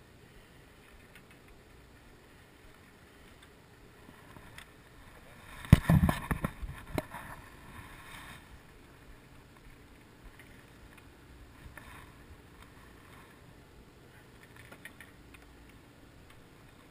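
A burst of knocks and rubbing from the GoPro being handled and turned, starting about six seconds in and lasting a couple of seconds, over faint steady background noise.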